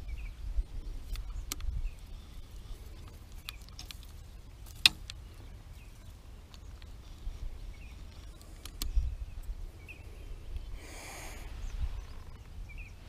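Wind rumbling on the microphone, with scattered small clicks from a baitcasting reel and line being handled and one sharp click about five seconds in. A short rushing sound follows about eleven seconds in.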